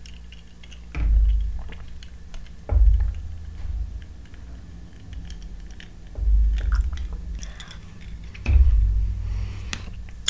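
Close-miked mouth sounds of eating and drinking: sips and swallows from a glass, chewing, and small wet mouth clicks. Four dull low thumps fall about a second, three, six and eight and a half seconds in.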